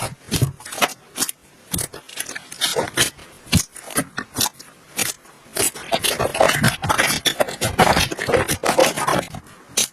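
Slime being pressed and pulled by hand, giving irregular sticky popping and crackling clicks that come faster in the second half.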